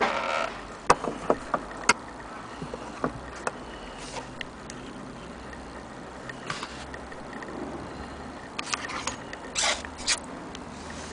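Handling noise from an Edison Bell portable gramophone: scattered light clicks and knocks of its metal tone arm and soundbox being moved and handled, over a steady hiss. The sharpest clicks come in the first two seconds.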